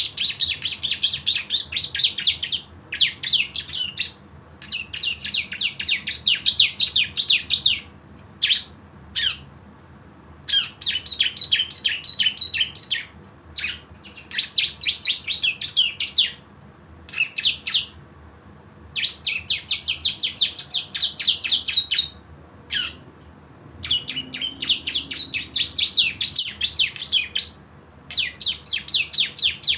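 Bar-winged prinia (ciblek) singing its rapid 'bren' song: repeated bursts of fast, high, repeated notes, each lasting one to three seconds, with short pauses in between.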